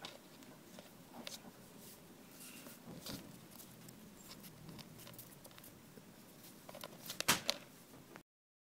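Faint rustling and scattered soft clicks of fingers handling fishing line and a hook while tying a knot, with a short cluster of louder clicks near the end. The sound cuts off abruptly just before the end.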